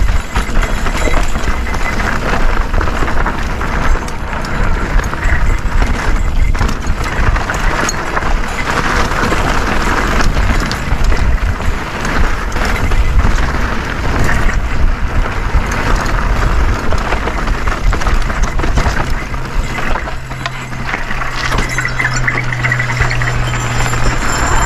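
Mountain bike riding over a rough dirt trail: a steady rush of wind and tyre noise with constant rattling and clattering from the bike, and a low steady hum for the last few seconds.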